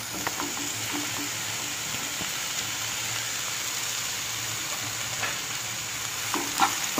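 Oil sizzling steadily in a nonstick frying pan as cubed ridge gourd is tipped in on top of frying onions and green chillies, with a few light clicks at first. Several sharper knocks come near the end.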